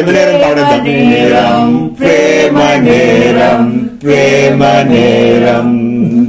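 Unaccompanied singing of a line from a Telugu film song, the voice holding long notes that step in pitch, in three phrases with short breaths between them.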